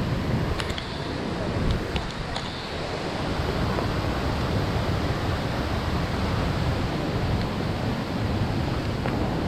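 Steady rushing noise of a large waterfall and river, with wind buffeting the microphone. A few faint clicks come about one and two seconds in.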